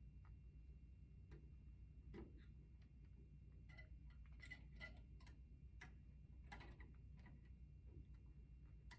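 Near silence with faint, irregular small clicks and ticks from handling wires and a new single-pole light switch.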